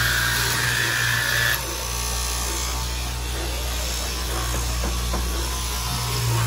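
Electric straight-knife cloth cutting machine running with a steady motor hum as its reciprocating blade cuts through a thick stack of layered fabric. A higher-pitched part of the sound stops about a second and a half in, while the hum carries on.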